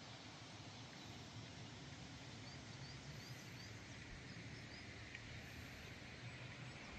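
Faint open-air countryside ambience, a low steady hiss, with a small bird chirping a quick series of short rising notes about two and a half seconds in and a few more later.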